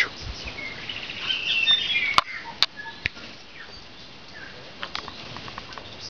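A tui singing a short phrase of chirps and whistles mixed with sharp clicks, about one to three seconds in, then a few softer calls near the end.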